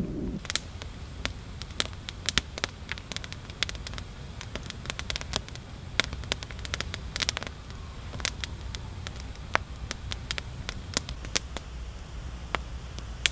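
Wood campfire crackling, with irregular sharp pops over a low steady rumble.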